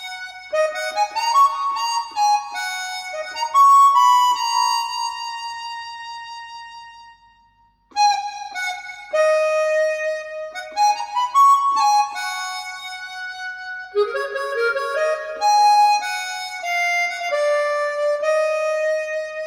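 Music played back through a KEF iQ1 bookshelf speaker: an instrumental melody of held notes with a reedy timbre. It fades away about seven seconds in and starts again a second later.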